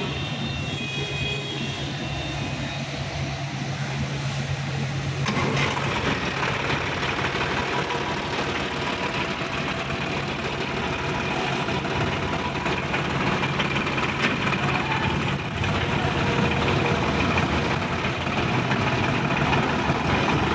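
Sonalika DI-50 RX tractor's diesel engine idling, then revved up about five seconds in and running steadily and a little louder as the tractor drives off.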